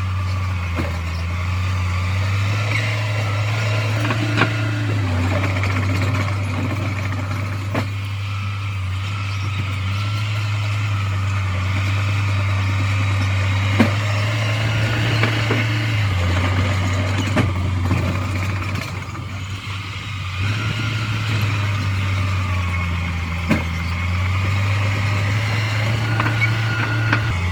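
Diesel engine of heavy earthmoving machinery running steadily, its low note dropping and rising again several times as the load changes. A few sharp metallic clanks sound over it.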